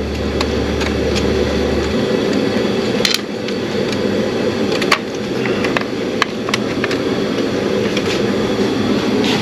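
Scattered clicks and taps of a hand tool on metal as the distributor cap on a Jeep 4.0 engine is unscrewed, over a steady loud rumbling noise. A low hum stops about two seconds in.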